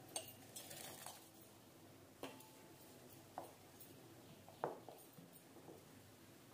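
Soaked rice and dal sliding from a glass bowl into a stainless steel pot of milk in the first second, then a wooden spatula knocking lightly against the steel pot as it stirs, three quiet clinks a little over a second apart.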